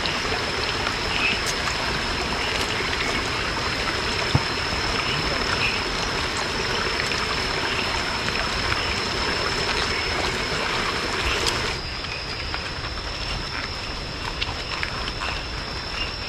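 Steady rush of running water, with an insect's continuous high-pitched whine over it. The rushing drops abruptly about twelve seconds in, while the whine carries on.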